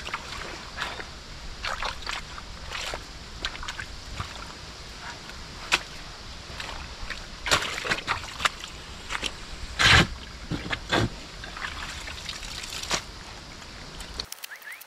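Shovel digging in wet clay loam in a trench flooded with groundwater: irregular squelches, scrapes and sloshes of muddy water, with the loudest one about ten seconds in. The sound cuts off abruptly shortly before the end.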